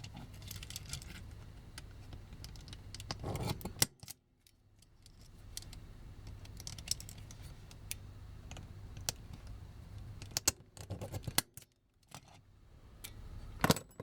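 Scattered small metallic clicks and clinks as a metal punch is set against a rivet on a die-cast toy and driven to punch it out, with a few sharper clicks.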